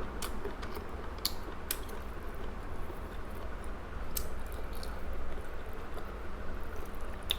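Close-up eating sounds of chewing grilled chicken drumstick, with scattered sharp mouth clicks and smacks over a steady low hum.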